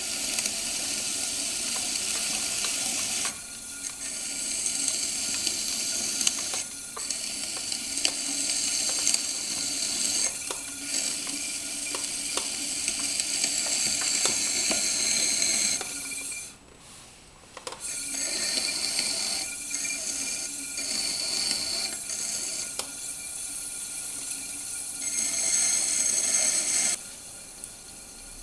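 Metal trimming tool shaving clay off the foot of a bowl on a spinning potter's wheel: a steady scraping hiss. It breaks off for about a second and a half a little past the middle and drops away near the end as the tool comes off the clay.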